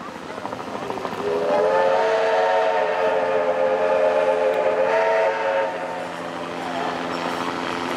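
Steam locomotive whistle sounding one long chime blast of several notes at once, lasting about four and a half seconds. It swells up with a slight rise in pitch about a second in.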